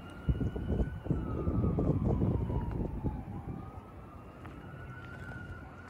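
Emergency-vehicle siren wailing, slowly rising, falling and rising again. For the first three seconds a louder low rumble sits under it.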